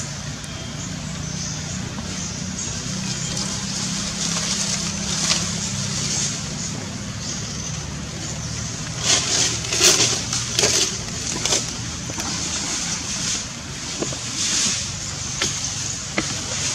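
Outdoor ambience: a steady low hum like a distant engine under a hiss, with a cluster of short rustling crackles about nine to twelve seconds in and a few more near the end.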